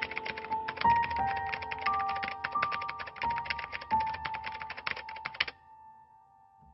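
Typing sound effect: rapid key clicks with a few harder strikes, over soft background music of held notes. The clicking stops about five and a half seconds in, leaving a fading held note.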